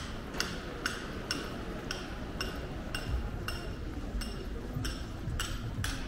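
Evenly spaced, sharp ringing ticks, about two a second, over a low background rumble of the street.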